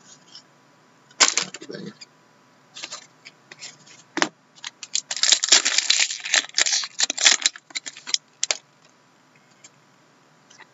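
Upper Deck Trilogy hockey card pack's foil wrapper being torn open and crinkled in the hands. There is a short crackle about a second in, then scattered clicks, and dense crackling from about five seconds in until near the end.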